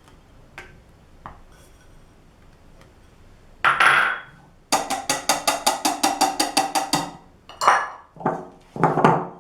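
Kitchen utensil clattering rapidly against a mixing bowl, about eight quick strikes a second for roughly two seconds, among a few separate knocks and scrapes of dishes before and after.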